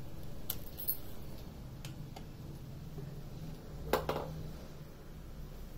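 A few light clicks and knocks over a low steady hum, with one louder, sharper knock about four seconds in.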